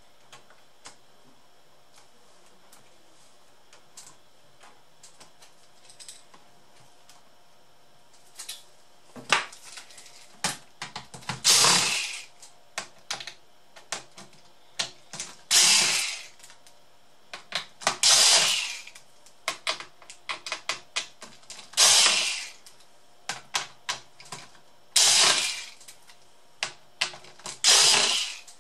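Cordless electric screwdriver running in six short bursts, each under a second and a few seconds apart, backing screws out of a laptop's top case. Small clicks and taps of screws and plastic come in between. The first several seconds hold only faint clicks.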